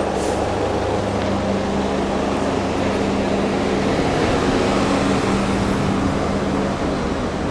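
A motor vehicle's engine running steadily with a low, even hum, amid street traffic noise.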